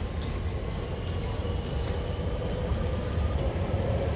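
Passenger train running over a railway bridge: a steady low rumble with a faint whine held at a few fixed pitches.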